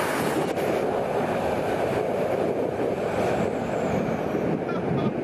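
Steady rushing of wind over a rope-mounted camera's microphone as a canyon-swing rider falls and swings at speed through the gorge.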